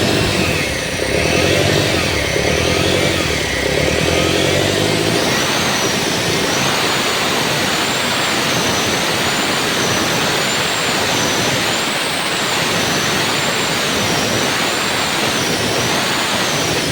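Turbocharged car engine running with a high turbo whine over a steady rushing noise. From about five seconds in, the whine wavers up and down at an even pace, roughly once a second. It is the noise of a bad turbocharger.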